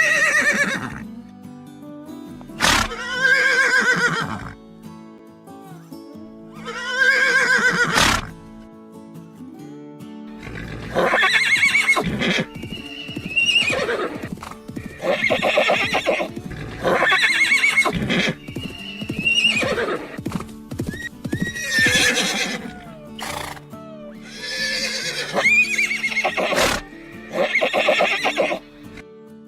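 Horse neighing again and again, about a dozen whinnies, each a loud high call that shakes and falls in pitch. Background music plays steadily underneath, and a few sharp clicks come between the calls.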